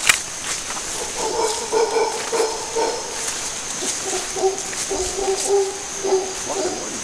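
A troop of howler monkeys howling: a run of repeated, pitched calls starting about a second in and going on in overlapping bouts.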